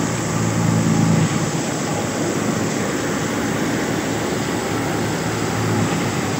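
Wheat thresher running while wheat sheaves are fed in, a loud, steady mechanical noise of its spinning drum and belt-driven pulleys. A low hum is present during about the first second.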